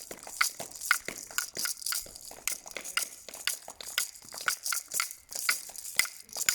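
Hands clapping in quick, sharp strokes, about three or four a second, as applause for the NHS.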